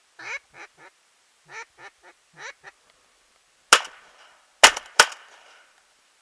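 A duck quacking in a run of short calls, then three shotgun shots: one about three and a half seconds in, and two close together about a second later.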